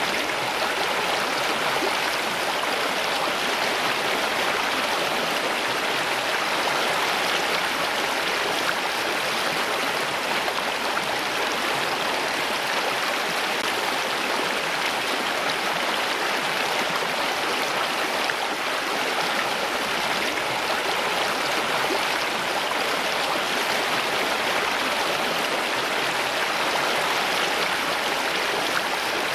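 Running water in a steady, even rush with no breaks or distinct drops.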